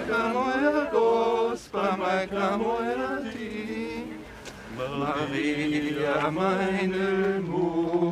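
Voices singing a slow, chant-like religious hymn with long held notes, pausing briefly twice.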